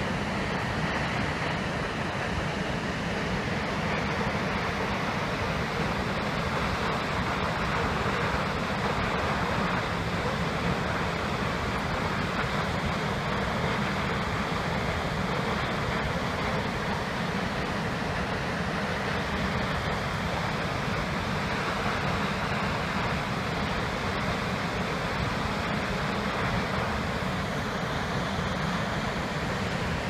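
Steady roar of the Düden waterfall, about 33 m high, falling off a sea cliff into the sea, with no let-up.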